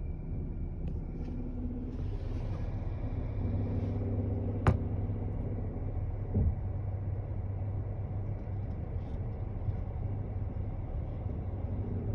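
Car engine idling in Park with a steady low hum and a droning tone that comes and goes, the weird noise the owner hears in Park. A sharp click a little before the middle and a dull thump shortly after.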